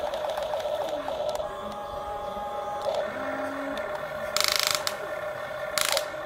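Huina RC excavator's small electric gear motors whining steadily, with rapid gear clicking in the first second as the arm and bucket move. Two short loud scrapes come about four and a half and six seconds in, as the bucket digs into the gravel.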